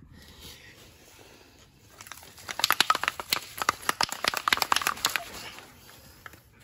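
Rust-Oleum undercoating aerosol can being shaken to mix it before spraying: the mixing ball rattles inside in a fast run of sharp clicks. The rattling starts about two and a half seconds in and lasts nearly three seconds.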